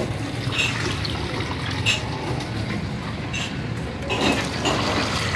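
Watermelon juice pouring from a plastic jug into a steel basin of ice and chopped watermelon, splashing steadily, with a sharp clink about two seconds in.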